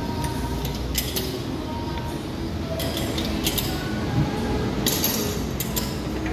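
Workshop ambience: a steady low hum with scattered sharp metallic clinks of hand tools, several times, as a mechanic works at a car's rear wheel.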